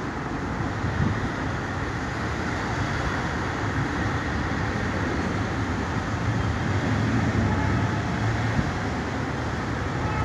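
Steady low rumbling background noise with a hiss above it and no distinct events.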